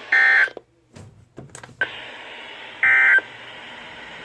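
Emergency Alert System end-of-message signal on weather radio: two short bursts of warbling SAME data tones, one right at the start and one about three seconds in, marking the end of the warning broadcast. Steady radio static runs between them and drops out briefly about half a second in.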